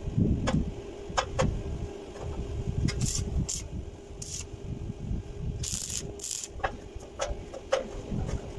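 Steel stair treads being handled and set against a round steel pipe column: irregular metal knocks, clanks and rattles with heavy thuds, and a few short hissy bursts in the middle, over a steady low hum.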